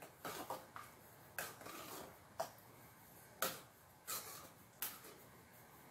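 A string of light clicks and knocks from kitchen utensils and dishes being handled, the clearer ones coming roughly a second apart.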